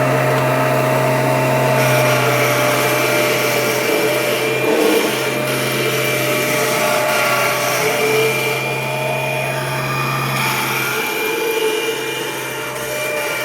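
Kirby Generation 4 upright vacuum cleaner running steadily: a continuous motor hum with a thin high whine over the rush of air. The low hum weakens about eleven seconds in.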